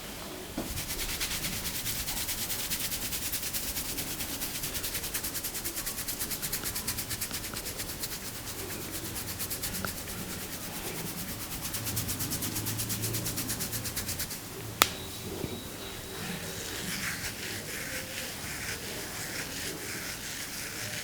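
Hands rubbing a scalp and hair fast and rhythmically in an Indian head massage (champi), as fast, even strokes. They stop about fifteen seconds in with a single sharp crack, followed by softer rubbing and rustling.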